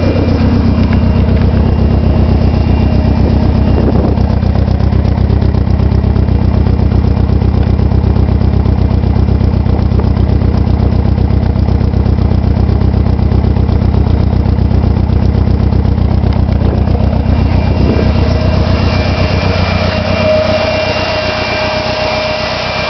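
Nissan SR20DET turbocharged four-cylinder engine idling with a misfire after sitting unused for three months. Its revs drop back to idle over the first couple of seconds, then it runs steadily.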